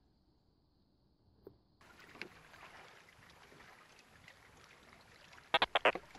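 Near silence, then about two seconds in a steady outdoor wash of wind and small waves lapping at a wooden dock on a lake. Near the end come a few loud, short knocks.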